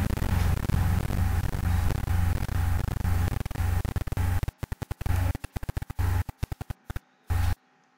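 Electrical buzz and static on the audio line: a low hum with hiss that, about halfway through, breaks into rapid stuttering on-off bursts and cuts off shortly before the end.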